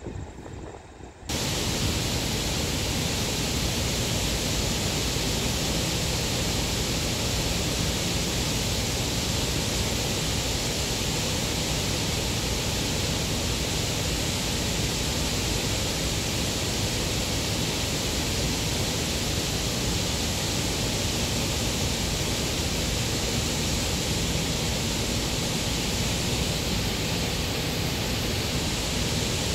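Steady rushing of water at a canal lock, cutting in sharply about a second in.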